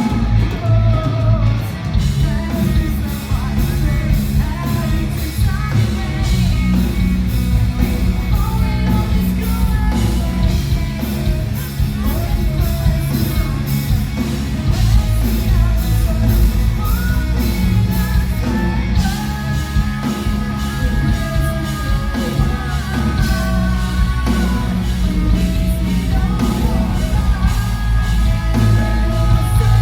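Live heavy metal band playing: distorted electric guitars, bass and drums, with a singer's vocal line over the band; held melodic lines come in about two-thirds of the way through.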